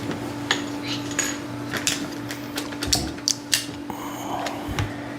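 Hard plastic toy parts clicking and clattering irregularly as they are handled and knocked together.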